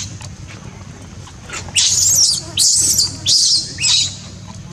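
Newborn macaque crying: four short, shrill, high-pitched screeches in quick succession, starting about two seconds in. These are an infant's distress cries at being separated from its mother.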